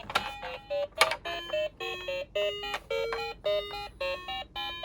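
A toy police car's sound chip plays a beeping electronic tune of short stepped notes, with a sharp click about a second in.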